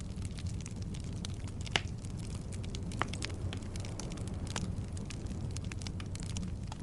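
Wood logs burning in a fireplace: a steady low rumble of flame with frequent irregular crackles and pops, two sharper pops a little under two seconds in and at about three seconds.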